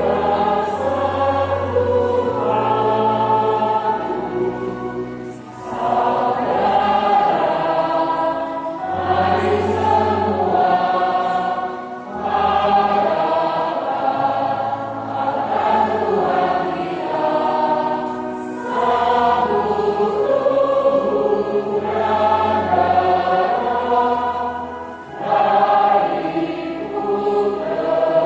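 Church choir singing a hymn in long sustained phrases, with brief breaks about every six seconds and steady low notes held beneath the voices.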